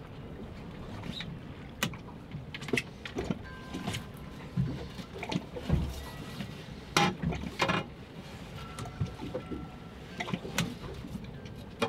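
A landing net holding a large tautog being brought aboard and set down on a fiberglass boat deck: a dull thump about six seconds in, with scattered sharp knocks and clatter, loudest just after. Water lapping against the hull runs underneath.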